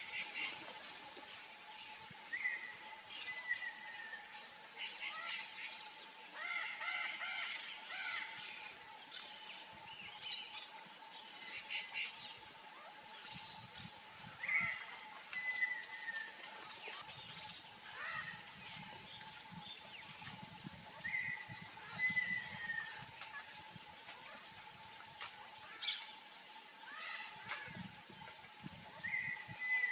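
Wetland ambience: a continuous high-pitched insect drone with a lower steady tone under it, while birds give scattered chirps and a short falling call repeated every several seconds.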